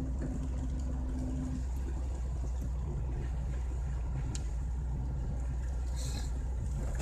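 A 2003 Chevrolet Celta heard from inside the cabin while driving on a wet road: a steady low engine and road rumble with an even hiss from the tyres. A steady hum drops away about a second and a half in.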